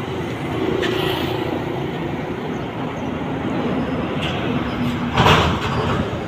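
Steady road traffic noise, with a brief pitched tone about a second in and a louder surge about five seconds in.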